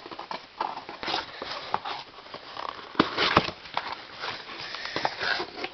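Cardboard shipping box being pried open by hand: flaps scraping and rustling in irregular bursts, with a sharp crack of cardboard about three seconds in.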